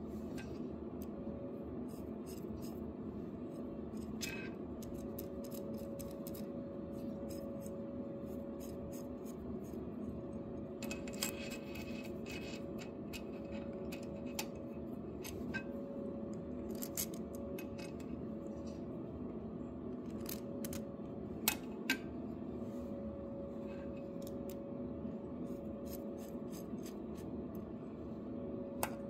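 Aluminum gauge-rod end blocks being screwed by hand onto a steel threaded rod: small metal clicks, taps and scrapes, two sharper clicks close together a little past the middle, over a steady background hum.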